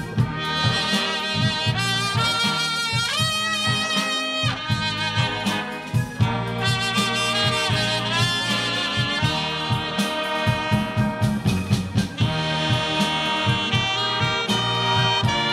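A live horn band playing: a trumpet out front over saxophones, trombones, electric guitar and drums, with a steady drum beat.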